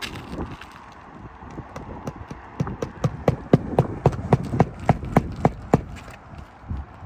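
Hammer blows driving roofing nails through an asphalt shingle tab: a quick run of about fifteen sharp strikes, about four a second, starting about two and a half seconds in and stopping about a second before the end.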